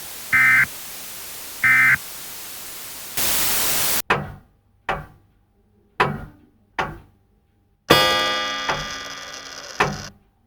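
Two short EAS end-of-message data bursts, chirpy two-tone warbles, over a steady static hiss. Then a brief loud blast of static, four sharp thunks a second or so apart, and a louder clattering impact whose ringing dies away over about two seconds.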